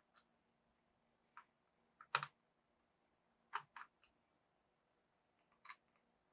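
Scattered small clicks and taps from a screwdriver working the battery's retaining screws out of an HP 15S laptop, about seven in all, the loudest a little after two seconds in and a quick cluster of three near the middle; near silence between them.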